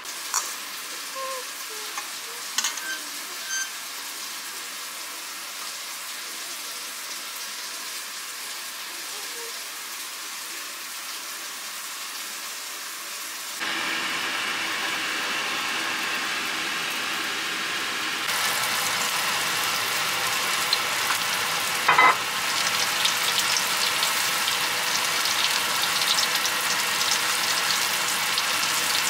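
Oil sizzling in a frying pan as small Korean meat patties (dongeurangttaeng) and perilla-leaf jeon fry, growing louder in the second half, with a sharp knock about two-thirds of the way in.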